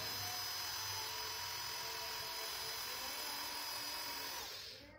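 Wondercut electric drill running steadily with a 4 mm bit pressed into an iron strip, cutting very slowly, sped up four times; the sound fades out near the end.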